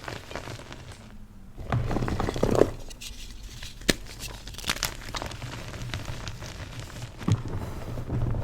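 Crusty, flaky blocks of yellow-dyed BSN gym chalk being crushed, crunching and crumbling. There is a heavier crunch about two seconds in, then scattered sharp cracks among steady fine crackling.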